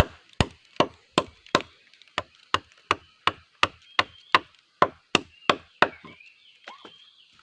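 A blade chopping into the base of a giant gombong bamboo stem, about three sharp strikes a second, stopping about six seconds in. The cut is made to let water drain out of the bamboo.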